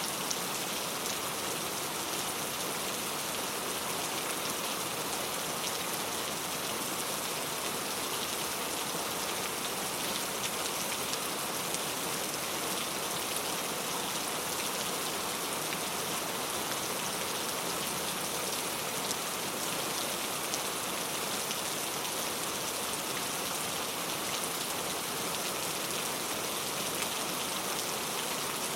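Steady rain falling, a dense even patter of drops with no breaks or thunder.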